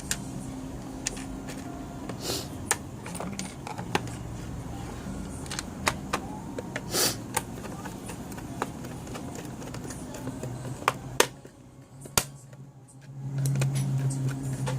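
Scattered sharp clicks and taps of small plastic parts being handled, as a plug-in power meter is worked on by hand, over a steady low hum. Near the end a louder low hum comes in.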